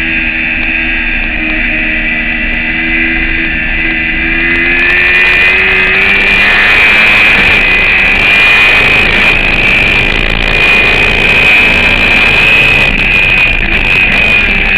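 Racing motorcycle engine heard from on board, easing off and then pulling hard back up through the revs from about five seconds in, with a loud rush of wind over the microphone.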